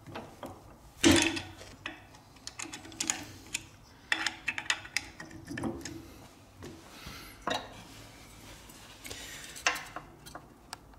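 Hand tools clicking, clinking and scraping against a heavy steel V-belt pulley while the Allen grub screws of its split-cone bush are worked loose. The sharpest clink is about a second in, and it briefly rings.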